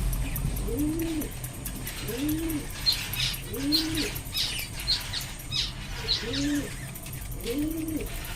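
Domestic pigeons cooing, a low rising-and-falling coo repeated every second or so. A run of short, high bird chirps sounds between the coos, thickest about three to six seconds in.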